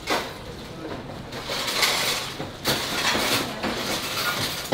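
Busy kitchen noise while a knife cuts rib meat from a beef rib rack: clatter and clinks, with two sharp knocks, one at the start and one under three seconds in, and indistinct voices.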